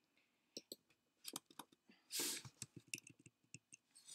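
Soft, irregular clicks of typing and clicking on a computer keyboard and mouse, with one short breathy hiss about two seconds in.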